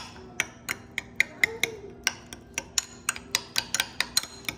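Metal measuring spoon clinking against a small ceramic bowl while stirring tomato paste and olive oil: rapid even clicks, about four a second, quickening in the second half.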